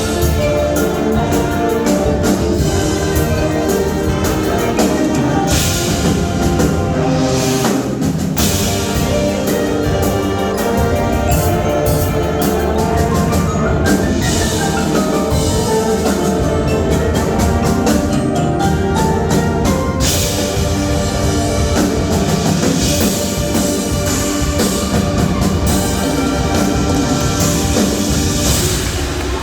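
High school marching band playing its competition show: winds and a percussion section with drums and keyboard percussion, full and continuous, building through the closing section of the show.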